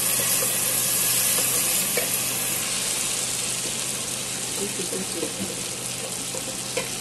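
Tomato-and-pepper sauce with onions sizzling as it fries in hot oil in a pan, stirred with a wooden spoon. The sizzle slowly eases off in the second half.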